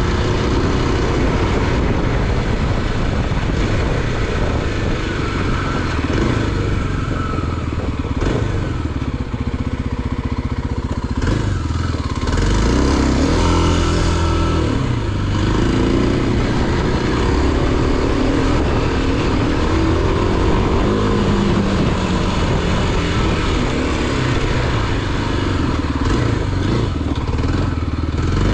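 A vehicle engine running while driving, loud and continuous, its pitch rising and falling as it speeds up and eases off.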